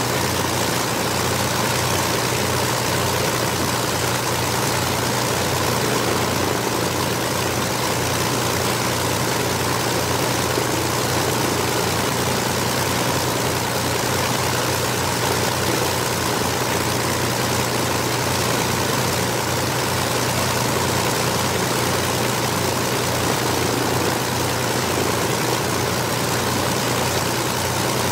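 Twin Rolls-Royce Merlin V-12 engines of a de Havilland Mosquito running steadily on the ground, propellers turning, with an even low pulsing and no change in power.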